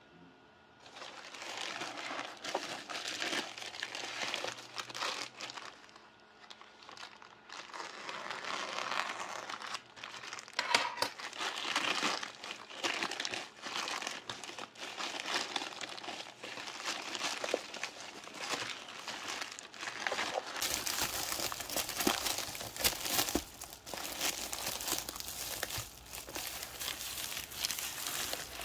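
Green plastic poly mailer crinkling and rustling as hands open it and slide out a bubble-wrapped package, in irregular bursts that start about a second in, with a short lull partway through.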